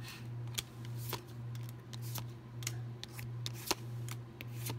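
Pokémon trading cards being flipped through by hand, a short flick or snap of card stock roughly every half second as each card is slid to the front of the stack, over a low steady hum.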